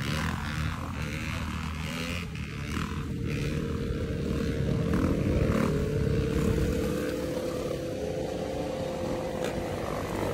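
Dirt bike engines running as they ride in a group, with a steady whine that sets in about halfway through and rises slightly in pitch.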